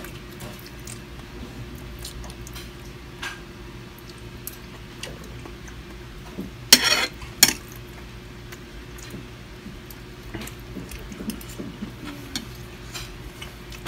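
Fork and spoon clinking and scraping against plates during a meal, in scattered small clicks. About seven seconds in comes a louder clatter, followed shortly by a sharp clink.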